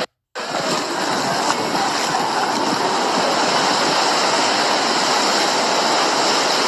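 Hurricane wind and rushing water: a loud, steady roar that starts after a brief silent break.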